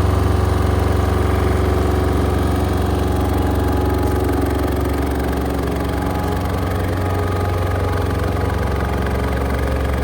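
Diesel engine of a LeeBoy L1000T asphalt paver running steadily, its level easing slightly about halfway through.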